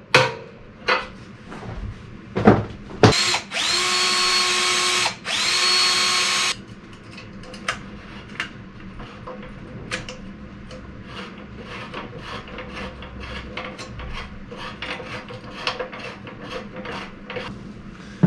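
Electric drill with a small bit running in two short bursts, about two seconds and one second long, its whine rising as it spins up each time: drilling a hole to mark the tank mounting. A long stretch of light clicks and taps of hand work follows.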